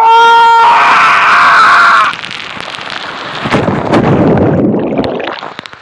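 A man's long yell over loud rushing water as he shoots down the end of a water slide, for about two seconds. From about three and a half seconds in comes a low, muffled churning of water as the phone goes under in the splash pool, fading near the end.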